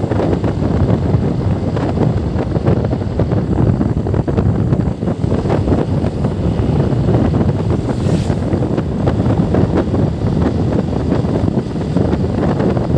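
Wind buffeting the microphone on a moving motorcycle, a steady loud rumble, with the motorcycle's engine running underneath.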